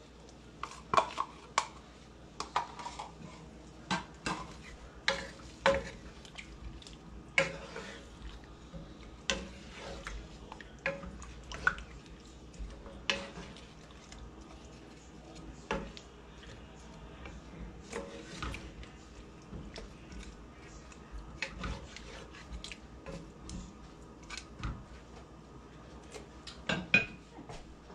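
A spoon and then a wooden spatula knocking and scraping against a pan as a chicken curry with potatoes is stirred. It comes as irregular sharp taps and clicks, more frequent in the first half, with a couple of louder knocks near the end.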